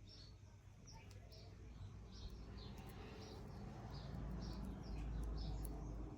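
A bird chirping over and over, about two short high chirps a second, with a low rumble that grows louder toward the end.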